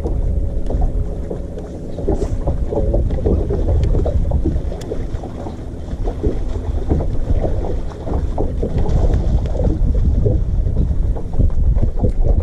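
Wind rumbling on the microphone of a camera mounted on a bass boat's bow, with small waves lapping irregularly against the hull.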